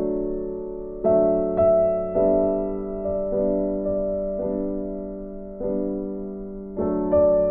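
Background music of slow piano chords, each struck and left to fade, with a new one about every second.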